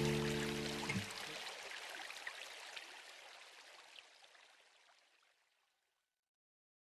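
The last held chord of the backing music, which stops about a second in, leaving a trickling, stream-like water sound with scattered drips that fades out to silence.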